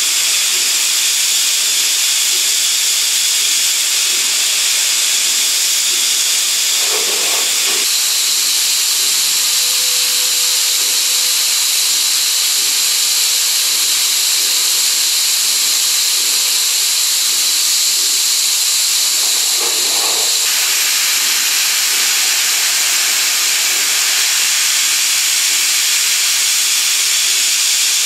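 Coolant spraying inside a Brother Speedio M300X3 machining center's enclosure during a cut: a loud, steady hiss with high whines above it that shift in pitch about 8 seconds in and again about 20 seconds in.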